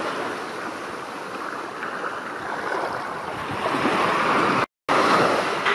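Small sea waves washing onto a beach, swelling and fading in slow surges, with a brief break in the sound about three-quarters of the way through.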